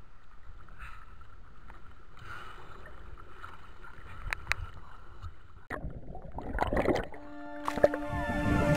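Faint water noise with a few light clicks, then a louder rush of water about six seconds in. Background music fades in near the end.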